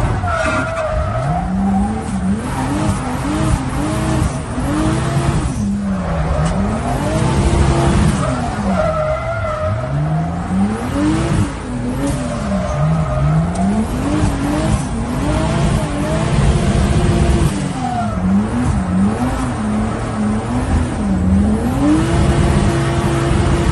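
Turbocharged BMW M50 straight-six in a rear-wheel-drive Mk1 Golf drift car, heard from inside the cabin, its revs rising and falling over and over as the throttle is worked through drifts, with the tyres skidding. Near the end the revs are held high for a couple of seconds, then drop.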